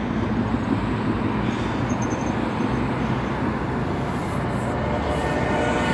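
Road traffic: cars driving past with a steady noise of tyres and engines. Near the end a vehicle's engine note comes in, rising slowly in pitch.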